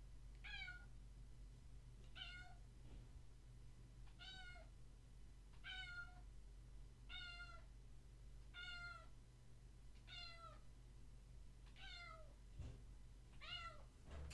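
A tuxedo kitten meowing over and over: about nine short meows, one every second and a half or so, each dropping in pitch at its end.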